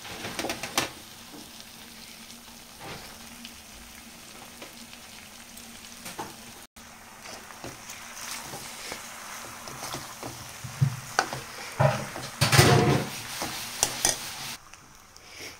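Macaroni and vegetables in sauce sizzling in a metal kadai while a steel spoon stirs them, with the spoon scraping the pan now and then. Louder scraping and clatter come about twelve seconds in.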